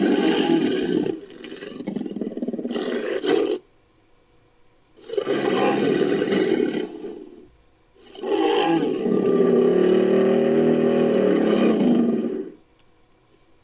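Designed creature roars for a Poposaurus, mixed from crocodilian and Nanotyrannus sound effects. Three roars with short pauses between them: the first trails off into a lower rumble, and the last is the longest, about four seconds, with a held, pitched tone.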